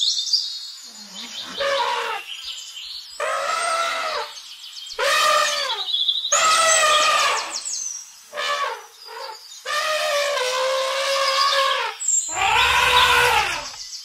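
African elephant trumpeting: a series of about seven loud, brassy calls, each rising and then falling in pitch, with short pauses between them.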